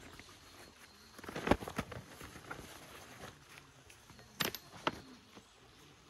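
A few knocks and clicks: a short cluster about one and a half seconds in, the loudest, then two sharp clicks about half a second apart near the end.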